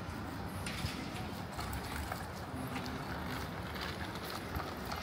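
Regular footsteps of a person walking on pavement, heard as light ticks under a steady low outdoor rumble of wind and distant city traffic.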